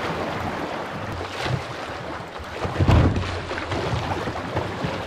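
Fast-flowing river water rushing and splashing around a kayak's hull as it rides through choppy riffles, with wind buffeting the microphone. A louder, deeper surge comes about three seconds in.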